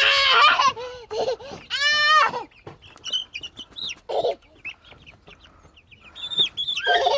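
Chickens clucking and squawking, with a loud drawn-out squawk about two seconds in and more calls near the end.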